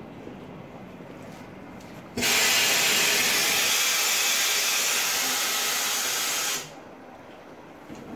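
Loud, steady hiss of compressed air blowing off from a train's air system. It starts abruptly about two seconds in and cuts off about four and a half seconds later.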